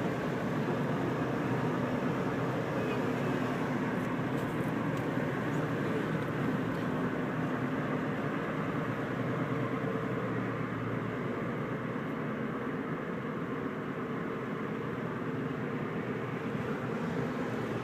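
Steady road and wind noise inside a moving car with a window rolled down, with a low engine hum underneath.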